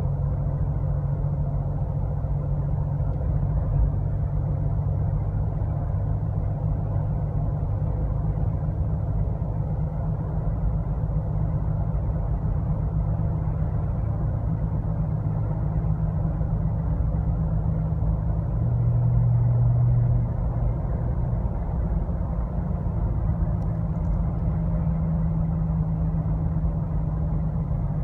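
Steady low engine and road drone inside a car's cabin while cruising at about 40 to 50 mph, with a louder low hum for a second or two about two-thirds of the way through.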